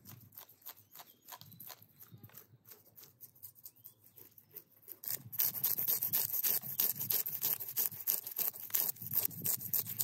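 A knife scraping scales off whole fresh fish in quick repeated strokes, faint at first and much louder and crisper from about halfway through.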